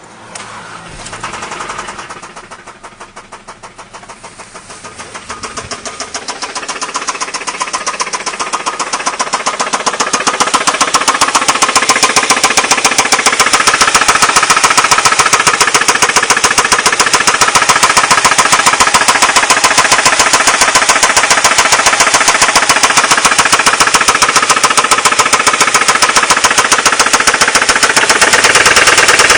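Ford Mondeo Mk3's 1.8 four-cylinder petrol engine running with a loud, fast, even rattling knock. The rattle grows louder over the first ten or so seconds, then holds steady. Its cause is unknown to the owner.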